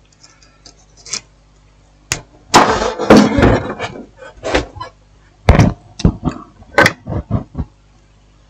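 A string of sharp knocks and clatters as hard objects and tools are picked up and set down on a workbench, busiest about two and a half to three seconds in, one clinking with a brief ring.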